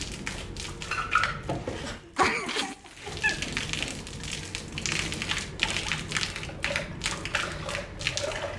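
A thin stream of liquid falling from a height, splattering irregularly on paving and into a tin, with a few brief vocal sounds.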